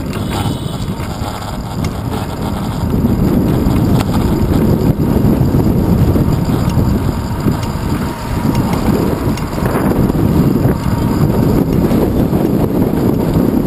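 Wind buffeting the microphone of a handlebar-mounted GoPro Hero 2 on a moving bicycle, a steady low rumble that gets louder about three seconds in.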